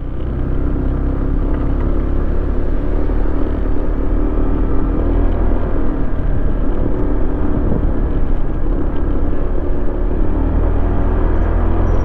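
Motorcycle engine running under way, with a heavy low rumble of wind and road noise on the microphone. It swells over the first second, then holds steady.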